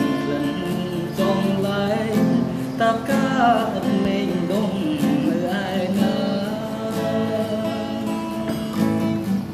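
Cutaway steel-string acoustic guitar strummed in steady chords, an instrumental passage of a Khmer song.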